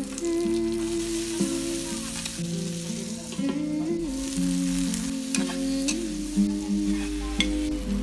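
Garlic, onion and tomatoes sizzling in hot oil in a wok while a metal spatula stirs, with a few sharp clicks of the spatula against the pan. Soft background music with slow, held notes plays along.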